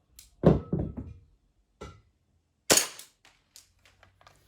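WE M9 gas blowback airsoft pistol firing two shots about two seconds apart, each a sharp pop followed by the clack of the slide cycling.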